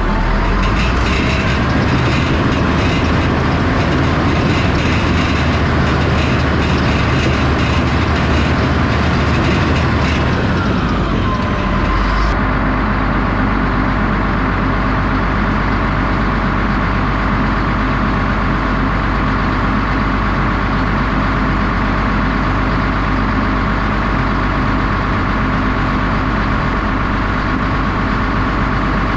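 Cat D6H Series II bulldozer's six-cylinder diesel working hard as the blade pushes a load of rock and dirt. About eleven seconds in, the engine winds down, a whine falling in pitch with it, then settles into a steady idle with a thin steady whine.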